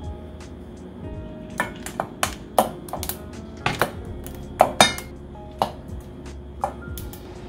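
Ice cubes being dropped by hand into stainless steel bowls of cold soybean soup, clinking sharply against the metal about ten times at an uneven pace.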